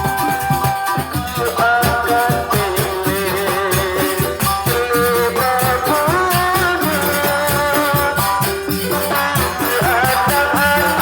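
A singer's wavering, ornamented vocal melody over drums and rattling percussion.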